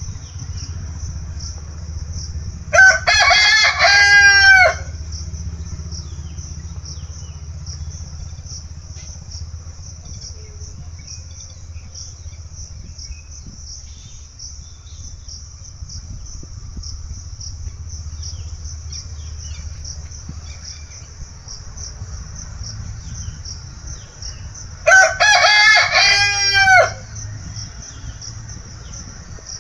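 Rooster crowing twice, each crow about two seconds long: once about three seconds in and again near the end. A steady high, pulsing chirr runs underneath throughout.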